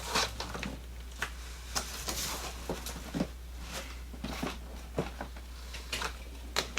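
Scattered knocks, clicks and brief rustles of packaged items being handled and pulled from an opened cardboard shipping box, over a steady low hum.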